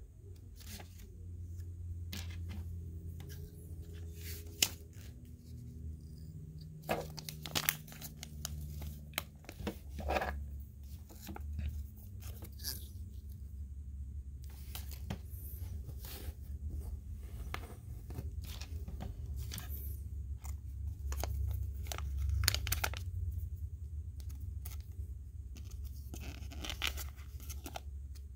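Lego pieces being handled and clicked together, with a plastic parts bag crinkling and tearing: irregular sharp clicks and crackling over a steady low hum.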